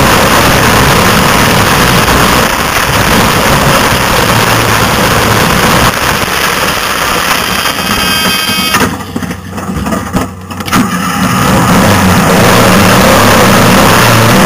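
Off-road race vehicle's engine running hard, loud, with a heavy rush of noise over it. The sound drops away for a second or two about nine seconds in, then comes back at full level.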